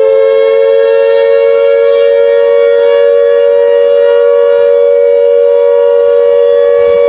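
Civil defence air-raid siren wailing loudly at a steady, held pitch, sounding as an emergency warning.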